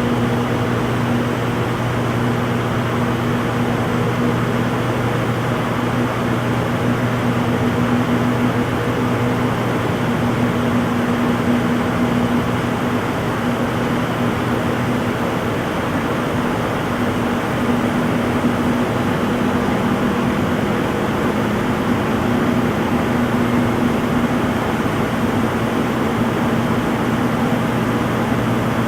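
Front-load washing machine on its spin cycle: a steady motor hum over a rushing whir, the hum's pitch dipping slightly about two-thirds of the way through.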